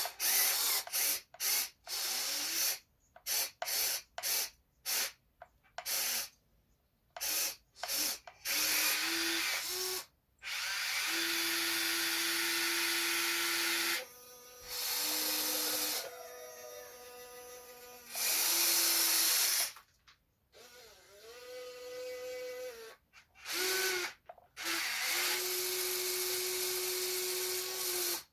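Small electric motors of an RC excavator whining as the controls are worked. There are many short start-stop bursts at first, then several longer steady runs of a few seconds each, one of which rises in pitch partway through.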